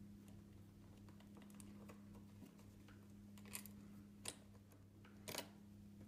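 Faint clicks and taps of small hardware being handled as screws with washers and an Allen key go back into a unicycle saddle's bumper through a brake lever mount, with three sharper clicks in the second half. A low steady hum lies underneath.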